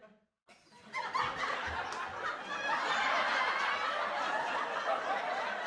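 Sitcom laugh track: after a brief silence, a studio audience breaks into laughter about a second in and keeps laughing steadily.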